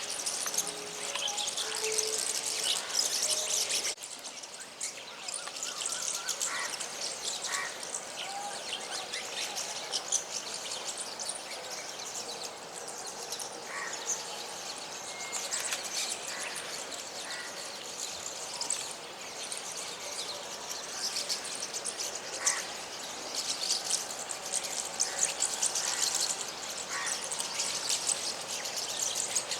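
A flock of small birds chirping and twittering: many short, high calls overlapping.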